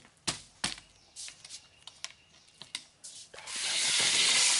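Light hollow knocks and clicks of a PVC-pipe helicopter door holder with foam-padded uprights being handled on a concrete floor. Near the end comes a loud hiss lasting just over a second.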